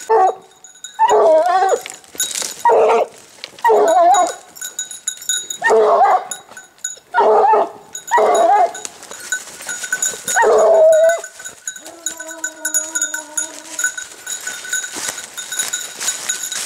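A scent hound baying in the woods while working a wild boar trail: about eight loud calls roughly a second apart, then one steadier held note near the end.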